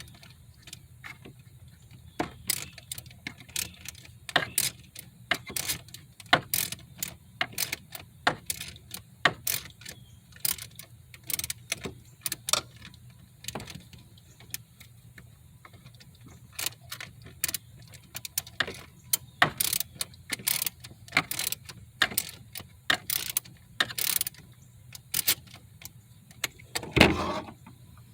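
Irregular clicks and clinks of hand tools and small metal hardware being handled while fitting blow-off valves, over a faint steady low hum. One louder knock comes near the end.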